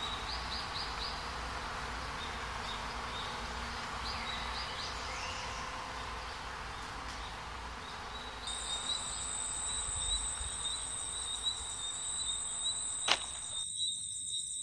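Insects chirping in short high calls over a low outdoor background; about eight seconds in, a steady high-pitched insect trill starts and carries on. A single sharp click sounds near the end.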